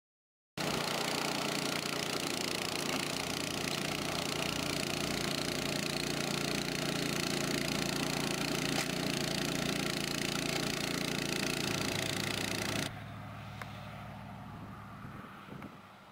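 Small gasoline engine of a walk-behind drip-irrigation trencher running hard while its carbide blade cuts a trench through turf. About thirteen seconds in, the engine drops to a quieter, steady run.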